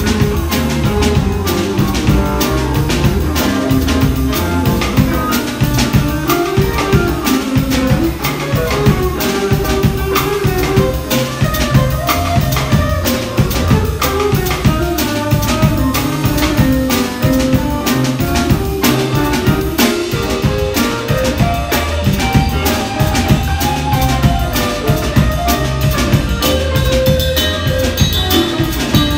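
Live band of electric guitar, upright double bass and drum kit playing a tune together: the guitar carries a moving melody over a walking bass line and steady drum and cymbal time.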